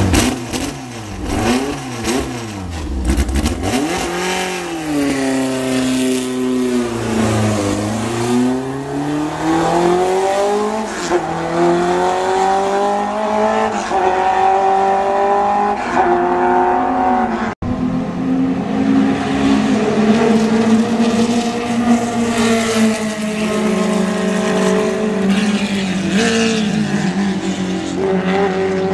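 Fiat Abarth 1000 TCR racing engines. First come quick throttle blips, then long rising revs through the gears, the pitch dropping back at each upshift and climbing again as the cars run at speed.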